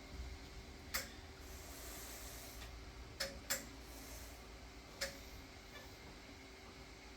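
Door hardware being slowly worked by hand: four sharp clicks, two of them close together in the middle, with a faint rubbing hiss after the first.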